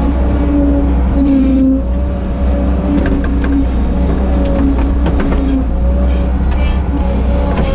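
Bobcat 743 skid steer's diesel engine running steadily under work, with a pitched whine that comes and goes and wavers as the machine works. A few short clanks come about three and five seconds in.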